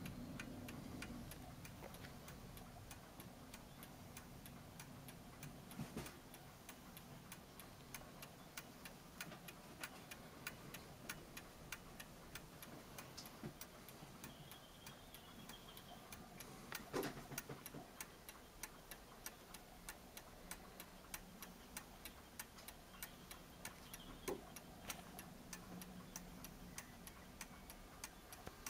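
Mechanical German striking clock movement, only its time train fitted, ticking faintly and evenly as its pendulum swings; it is running much better now that a rough pinion's leaves have been smoothed. A few louder knocks stand out, one about two-thirds of the way through.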